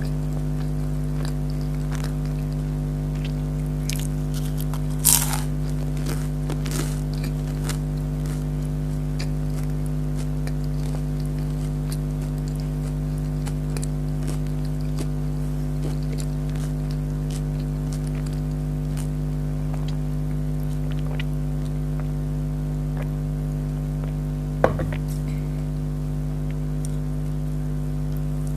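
A steady low hum with many even overtones, with a few sharp crackles and crunches of someone biting and eating fried spring rolls and fries. The sharpest crunches come about five seconds in and near the end.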